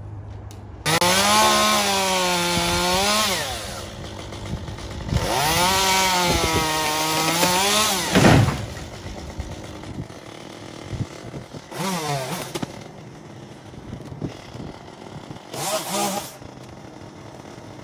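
Chainsaw cutting dead branches off a wind-felled tree: two long runs at high revs, the pitch dipping and recovering under load, then two short bursts, with the saw running quieter in between.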